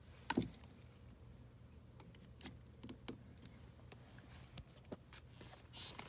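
Faint handling noises: a few scattered clicks and taps, the loudest a quick double tap about a third of a second in, over a faint steady low hum.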